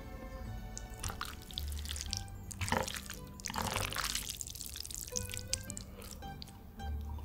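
Background music with a steady bass pattern, over wet, close-up eating sounds: a run of slurping and chewing noises, loudest in the middle.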